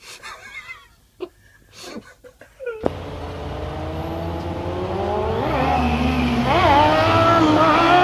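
A motor vehicle's engine cuts in suddenly about three seconds in and revs hard, its pitch climbing and wavering as it grows louder.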